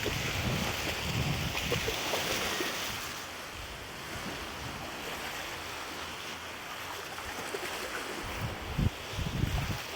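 Wind blowing hard, buffeting the microphone in low rumbling gusts in the first couple of seconds and again near the end, over a steady rushing noise.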